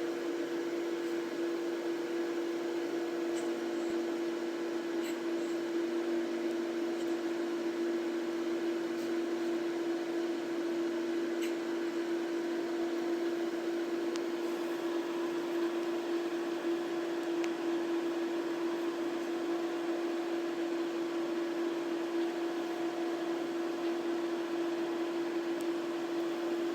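Microwave oven running with a steady hum, with a few faint ticks.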